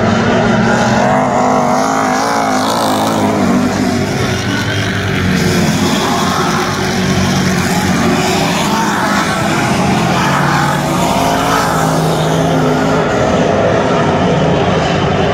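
Several dirt-track race car engines running hard together during a race, their notes rising and falling as the cars go around the oval.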